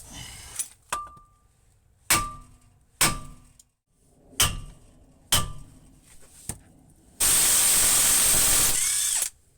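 A 12-pound sledgehammer strikes a seized CV shaft in a wheel hub about six times, roughly a second apart, each blow clanging with a brief metallic ring. Near the end comes a loud steady hiss lasting about two seconds that cuts off suddenly.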